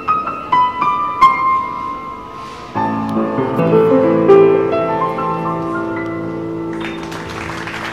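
Grand piano played solo: a run of single high notes, then about three seconds in a low, full chord struck and held, ringing on as further notes are added above it.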